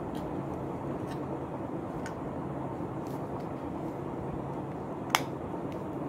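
A steady low hum, with faint ticks about once a second and one sharp plastic click about five seconds in as the relay's clear cover is pressed back on.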